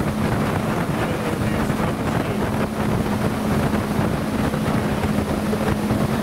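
Motorboat engine running steadily under way, a constant hum, with heavy wind buffeting the microphone and water noise.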